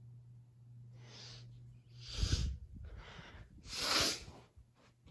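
Ceiling fan motor giving a steady low electrical hum, a fan that has developed a hum but still runs well. Over it come three or four loud breathy puffs of air, the loudest about four seconds in.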